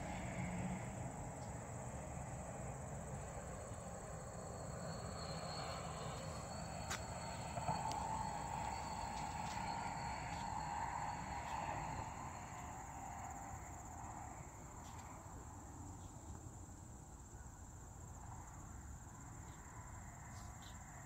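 Quiet outdoor ambience with a steady, high-pitched insect chorus.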